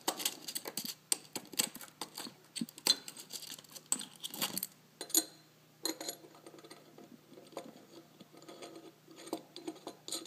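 Irregular metal clicks and clinks of steel hex bolts and aluminium mounting brackets being picked up and set down on a wooden bench, busiest in the first half, then fainter scraping clicks as a bolt is turned into a bracket by hand.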